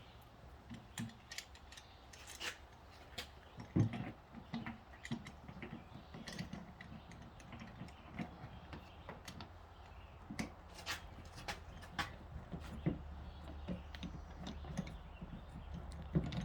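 Irregular clicks and knocks of small hard parts being handled, likely glue-pull dent repair tabs and tools, the strongest about four seconds in, over a steady low hum.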